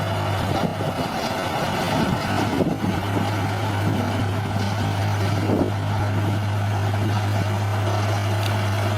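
Bulldozer's diesel engine running steadily under a constant low drone, with a few short knocks.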